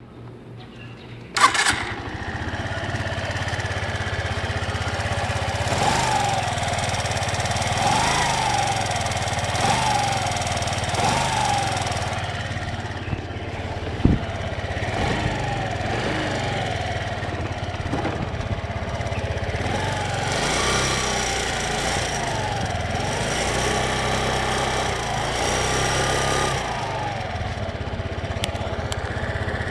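Small Suzuki GSR scooter engine starting about a second in and running, with repeated short rises and falls in pitch, carrying an abnormal noise from its engine cooling fan.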